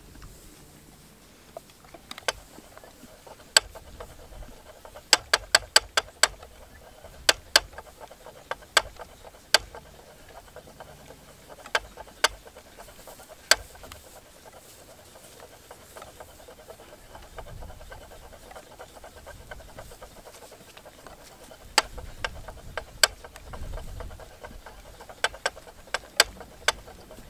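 Wooden treadle spinning wheel running while alpaca fiber is drafted and spun into yarn, with many sharp, irregular clicks, some coming in quick clusters.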